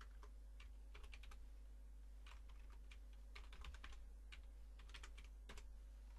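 Faint keystrokes on a computer keyboard, irregular clicks, some in quick runs of several, over a steady low hum.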